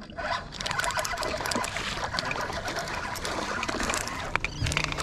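Water splashing and trickling at the surface where a hooked fish is being reeled toward the boat, with scattered light clicks throughout.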